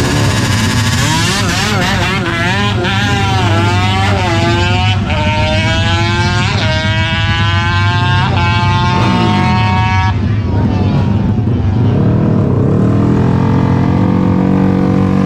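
Drag-racing motorcycle revving at the start line, then launching and accelerating hard away, its engine note climbing and dropping back at each of several upshifts before fading about ten seconds in. Near the end another motorcycle engine idles and is blipped at the line.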